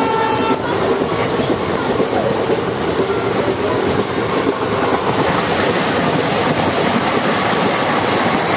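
Running noise of a moving train heard from inside the carriage, its wheels clattering over the rails. From about five seconds in it grows hissier as a Vande Bharat express passes on the next track.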